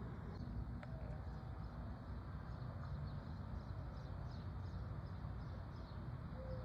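Quiet outdoor ambience: a steady low rumble with faint, scattered high chirps.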